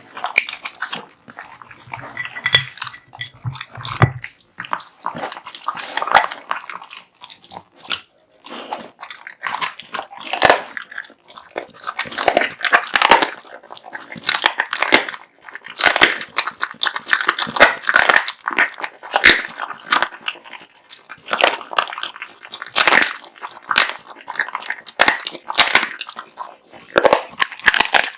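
An American Bully dog eating, with loud, irregular crunching, biting and wet chewing of its food, close to the microphone.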